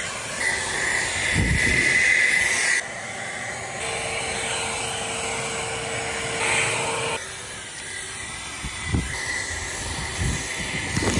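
EGO 800 CFM battery-powered backpack leaf blower running: a steady rush of air with a high whine. The sound changes abruptly about three seconds in and again about seven seconds in.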